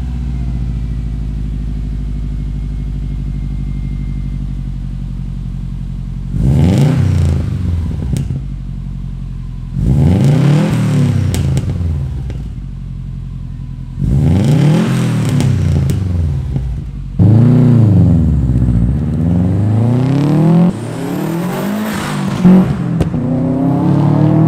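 Subaru STI turbocharged flat-four engine running through a COBB titanium cat-back exhaust with a straight-through muffler. It idles steadily, then is revved up and let fall back about five times, with one rev held longer partway through.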